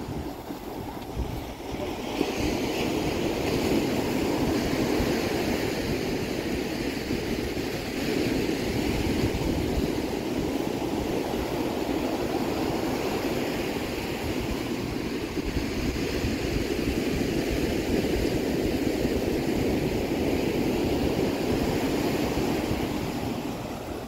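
Ocean surf breaking and washing up a sandy beach, a steady rush that grows louder about two seconds in, with wind buffeting the microphone.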